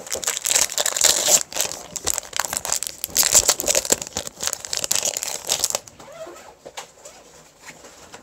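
Foil wrapper of a Pokémon Guardians Rising booster pack crinkling loudly as it is handled and opened right at the microphone. The dense crackling stops about six seconds in, leaving faint rustles and taps.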